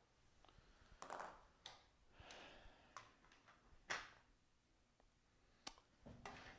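Faint handling noises: soft rustles and several light clicks and knocks as a plastic lens holder is lifted off an optical bench to swap lenses.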